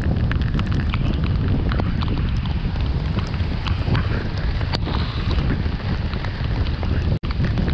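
Steady low rumble of a car driving on a wet road, with many scattered light ticks over it. The sound cuts out for an instant near the end.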